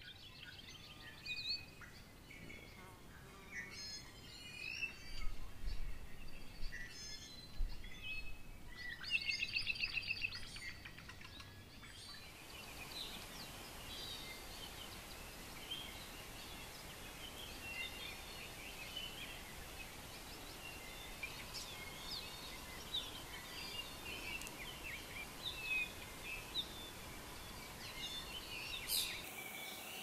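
Hawaiian forest birds calling and singing, with many short overlapping chirps and whistles and a fast trill about ten seconds in. A steady hiss lies underneath and gets louder about twelve seconds in, and there are a couple of low thumps in the first half.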